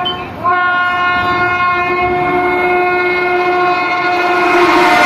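The horn of a WAP-7 electric locomotive sounding one long, steady blast as the express approaches at speed, with a brief break just after the start. Near the end, the rush of the oncoming train grows loud under the horn.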